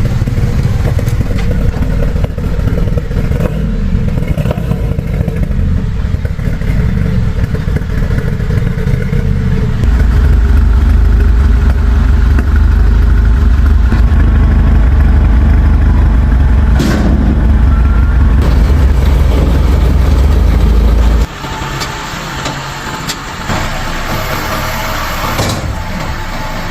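BMW 420i turbocharged four-cylinder engine running through an iPE aftermarket exhaust while misfiring, which a mechanic traced to a faulty ignition coil. The low rumble grows much louder and deeper about ten seconds in, then drops off sharply about twenty-one seconds in.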